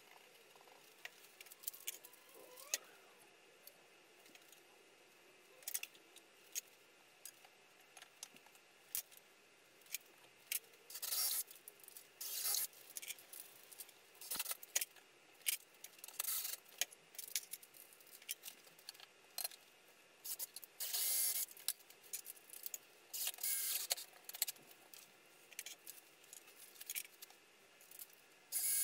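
Scattered clicks, knocks and short scraping rustles as timber rails and small metal and plastic tools are handled and set down on a wooden frame, with louder scrapes of wood on wood now and then.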